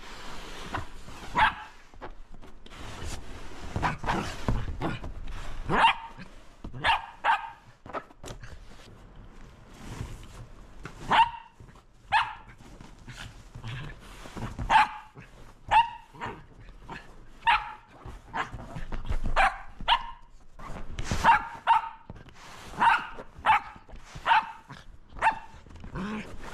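Shetland sheepdog barking excitedly in play, about twenty short, sharp, loud barks at uneven intervals, some in quick pairs, with rustling between them.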